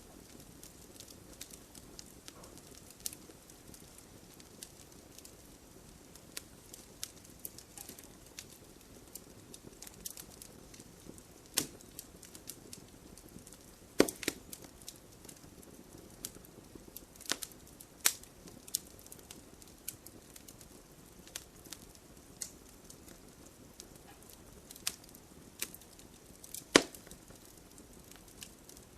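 Wood fire burning, crackling and popping at irregular intervals over a soft low rush of flame, with a few sharper, louder pops now and then.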